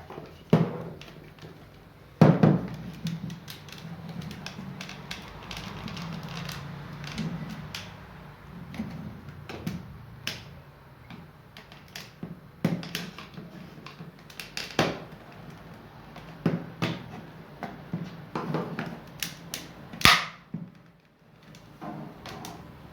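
Irregular clicks, taps and knocks of plastic parts as a hair dryer's plastic housing is pried apart to free the motor compartment. The loudest knocks come about two seconds in and near the end, over a low hum.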